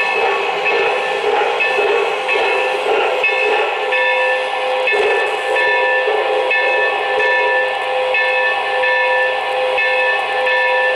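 O-gauge model train running, led by an MTH 4-8-4 Northern steam locomotive. Its electronic sound system plays train sounds with several held tones that break in a steady, even rhythm.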